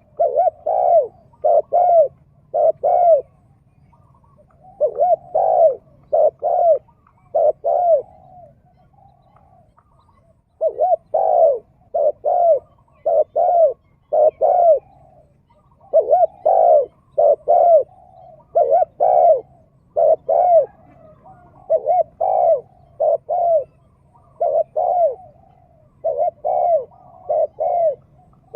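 Spotted dove cooing loudly and persistently, in repeated phrases of about four or five coos separated by short pauses.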